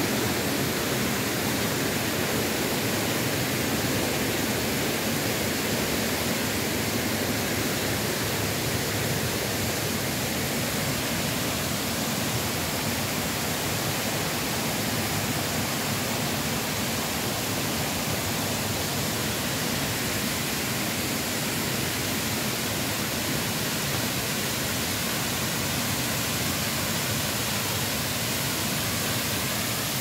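Rushing white water of a mountain stream, a steady, unbroken sound of flowing water.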